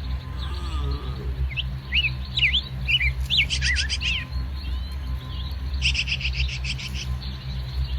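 Small birds chirping: a run of quick rising and falling chirps that ends in a fast chatter, about one and a half to four seconds in, and another rapid chatter near six to seven seconds, over a steady low rumble.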